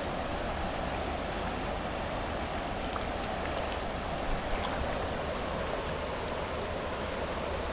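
Steady rushing of fast river current.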